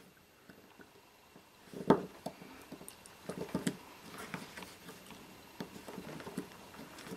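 Small hand tool clicking and scraping against the metal case of a circuit breaker while working out its drilled rivets, with one sharper click about two seconds in and lighter scattered clicks after.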